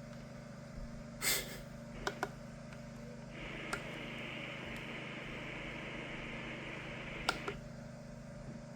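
Scattered plastic button clicks on a First Alert SFA1150 weather radio, over a low steady hum. A thin, high hiss starts about three seconds in and runs for about four seconds, cutting off just after two more clicks near the end.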